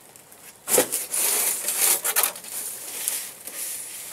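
Wooden beehive parts being pried and scraped apart with a hive tool: a sharp crack a little under a second in, then rasping, scraping noise.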